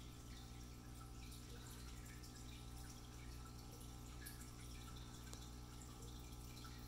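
Small aquarium filter running: a faint steady hum with light water dripping and trickling.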